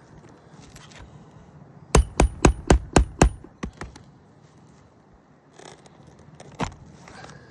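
Roofing hatchet striking a metal roof snake (shingle ripper) to cut or free roofing nails that are sunken deep into the shingles. Six sharp, ringing metal strikes in quick succession, about four a second, a couple of lighter taps after them, and one more strike near the end.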